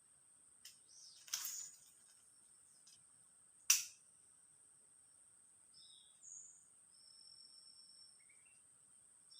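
Quiet natural ambience with a steady high-pitched insect drone and a few short bird chirps. A brief swish comes about a second in, and one sharp click, the loudest sound, comes near four seconds in.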